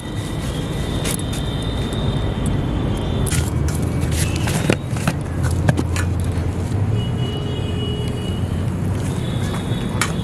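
Steady low rumble of road traffic, swelling in the middle as a vehicle passes, with a few sharp clicks and knocks scattered through it.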